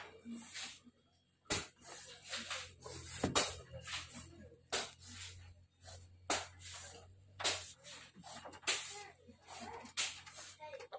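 A caged civet making short, breathy hisses, roughly one a second at uneven intervals.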